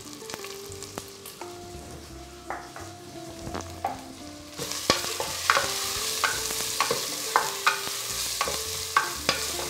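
Chopped onions frying in hot oil with spices in the base of a pressure cooker, stirred with a wooden spatula: a sizzle that grows much louder about halfway through, with the spatula knocking and scraping against the pot about once or twice a second.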